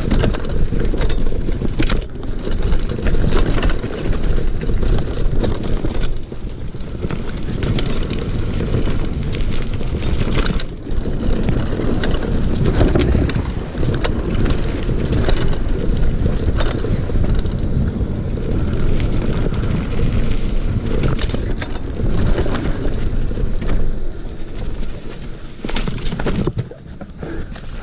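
Mountain bike riding fast downhill on a dirt trail: steady wind rush on the microphone and tyre noise, with frequent knocks and rattles from the bike over bumps. It gets a little quieter near the end.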